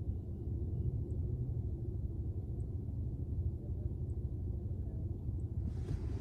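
Low, steady rumble of an idling vehicle engine, with a rushing hiss coming in near the end.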